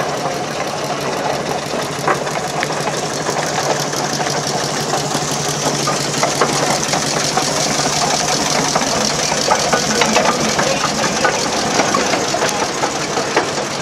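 Steam traction engine running past at close range, its motion clattering in a rapid, even rhythm with scattered sharp knocks, getting louder about halfway through as it comes alongside.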